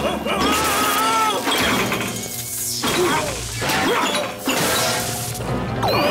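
Cartoon soundtrack: fast chase music with crashing and smashing sound effects.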